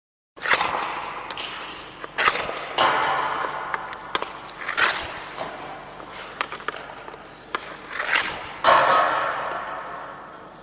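Hockey pucks being shot with a Warrior Novium stick on an ice rink: a series of sharp cracks from stick on puck and puck hitting the boards, each echoing through the arena.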